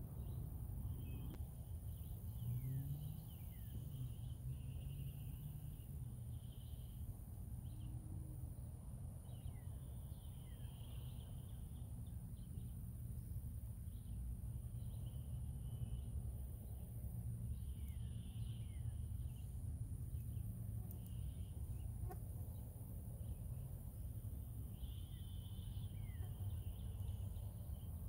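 Outdoor insect and bird ambience: a steady high-pitched insect drone, short trills recurring every few seconds, and brief falling bird chirps, over a constant low rumble.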